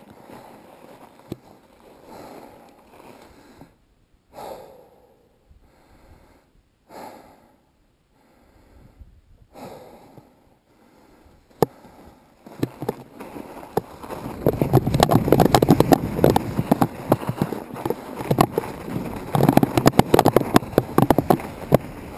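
A few soft breaths a couple of seconds apart, then from about halfway loud crunching footsteps in snow with wind buffeting the microphone.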